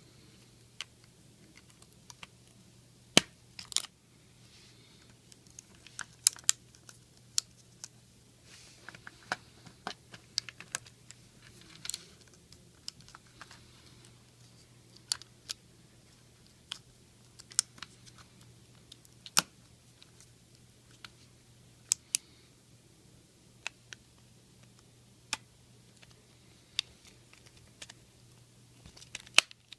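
Irregular sharp clicks and light taps from handling the small plastic housing and battery of a baby monitor, a few clicks every couple of seconds, over a faint steady low hum.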